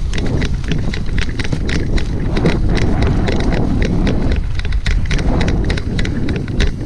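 Running footsteps on grass with gear rattling in a quick steady rhythm of about three to four a second, over the rumble of wind buffeting the microphone.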